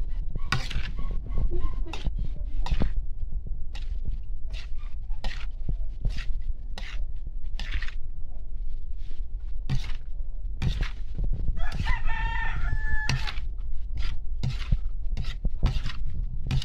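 Metal spatula scraping and knocking against a wok while chopped meat is stirred: an irregular run of sharp clicks. A rooster crows once, about twelve seconds in.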